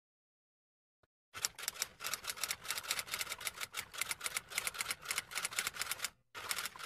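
Typing sound effect: a quick run of key clicks, several a second, starting about a second and a half in. There is a short break, then a last few clicks near the end.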